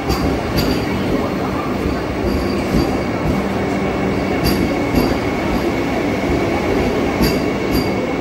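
Vande Bharat electric train's coaches rolling slowly past along a platform: a steady rumble of wheels on rail, with pairs of sharp clicks about half a second apart as the wheelsets cross a rail joint, heard three times.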